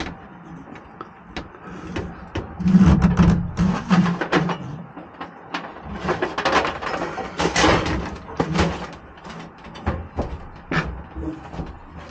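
Irregular clicks, knocks and rustling from a wire being handled and pulled along a truck cap's metal frame, louder and busier in a few stretches.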